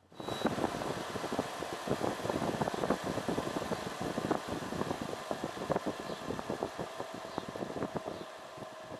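Zero Breeze Mark 2 portable air conditioner running, a steady mechanical noise laced with dense irregular crackling, slowly fading out near the end.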